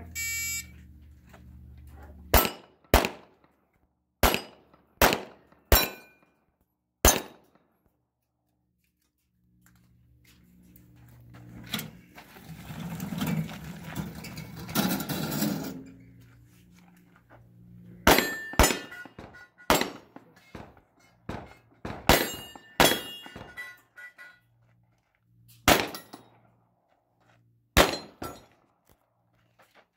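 Shot-timer start beep, then pistol shots fired in two strings: about six quick shots in the first few seconds, a pause with a stretch of rustling noise, then about a dozen more in the second half. Some shots are followed by a short ring, as from a struck steel target.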